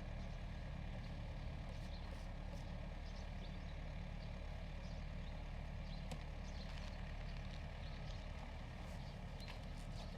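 Diesel engine of heavy construction machinery running steadily, with scattered light clinks and ticks.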